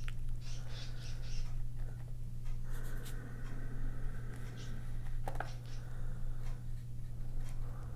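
A paintbrush laying gouache onto sketchbook paper in short, irregular strokes, over a steady low electrical hum.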